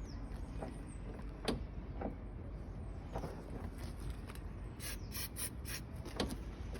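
Car door being worked back and forth on its freshly greased mechanism, giving faint creaks and scattered clicks, with a quick run of sharp high clicks about five seconds in. The door squeak is being cured with white lithium grease and is dying away.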